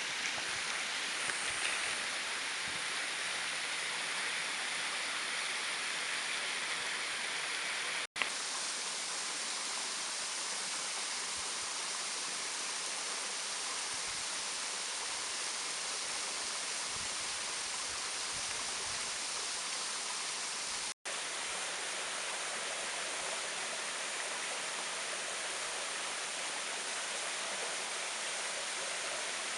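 Waterfall rushing steadily, a dense, even hiss of falling water. It drops out twice for a split second, about eight seconds in and again about twenty-one seconds in.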